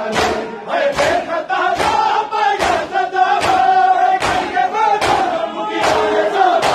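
A crowd of mourners chanting a noha (lament) in unison, with loud synchronised chest-beating (matam) slaps about every 0.8 seconds.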